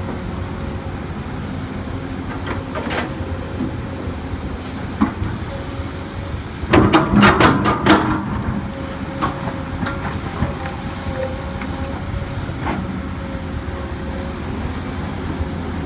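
Komatsu PC200 excavator working: its diesel engine running steadily with a thin steady whine over it, and scattered metallic knocks and clanks, a loud cluster of them about seven seconds in.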